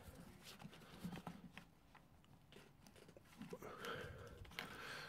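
Faint handling noises, small clicks and rubbing, as fingers work at a hose clip on a rubber fuel pipe, a little busier near the end.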